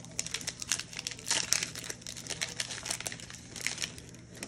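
Plastic wrapper of a retail trading-card pack crinkling and crackling as it is handled and torn open, loudest about one and a half seconds in.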